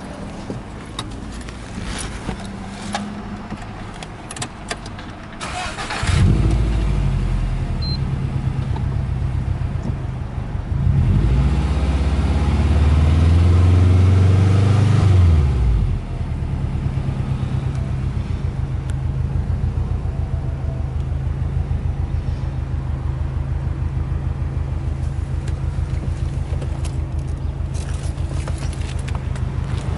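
A few light clicks, then the Subaru Impreza WRX STi Version IV's EJ20 turbocharged flat-four is started about six seconds in and idles. About five seconds later it is revved and held near 3,000 rpm for several seconds, then drops back to an even, pulsing idle.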